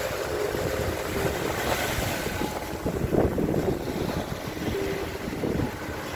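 Small waves washing up onto a sandy beach and spreading as foam, under wind buffeting the microphone.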